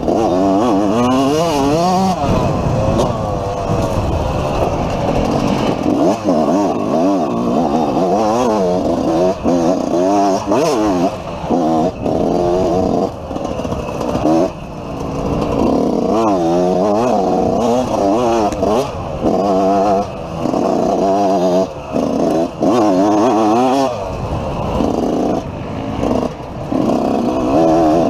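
250-class dirt bike engine revving hard as the rider races a wooded trail, its pitch climbing and falling constantly with the throttle, with short dips every few seconds as the throttle is rolled off.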